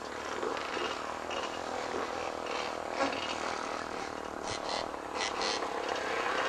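Steady drone of off-road vehicle engines, quad bikes and trail motorbikes, growing a little louder near the end, with a few brief hissing bursts a little past the middle.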